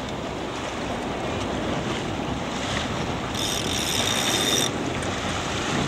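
Wind buffeting the microphone over the wash of choppy water, steady throughout. About three and a half seconds in, a thin high whine sounds for about a second.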